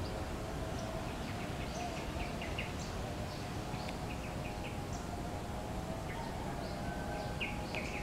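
Yellow-vented bulbuls giving short, scattered chirps, with a few louder calls near the end, over a steady low background noise.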